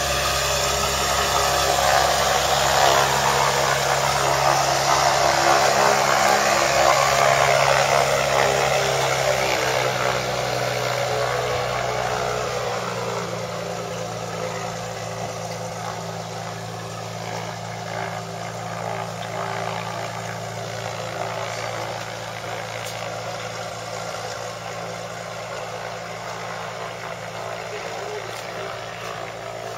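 Cessna 185 amphibious floatplane's piston engine and propeller running steadily as it taxis on the water, loudest in the first ten seconds as it passes close, then fading as it moves away.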